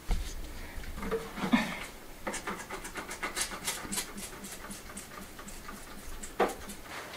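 Stiff brush scrubbing an old wooden ceiling joist in quick, even strokes of about four a second, working the white lime deposit off the timber.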